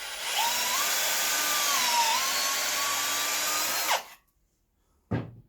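Power drill boring a pocket hole through a single-guide pocket-hole jig, running for about four seconds with a motor whine that rises and dips once midway under load, then stopping. A short knock follows about a second later.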